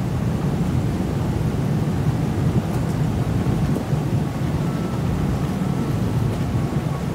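Rain and wind against a cruise ship's window, heard from inside as a steady low rumble with a few faint taps.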